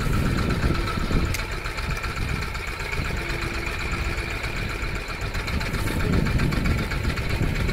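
Fishing boat's engine idling steadily, a constant low rumble with a high steady whine over it, beneath the wash of sea water as the gill net comes up alongside.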